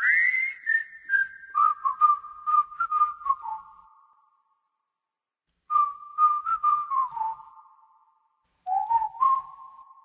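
A person whistling a melody in three short phrases, the notes stepping and sliding down, with silent breaks between the phrases.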